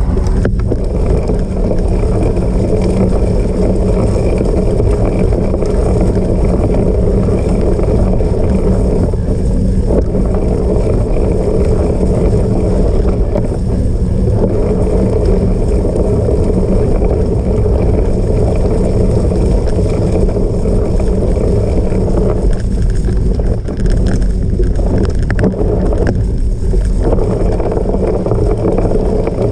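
Steady rumble of a cyclocross bike riding over rough off-road ground, with wind rushing over the microphone.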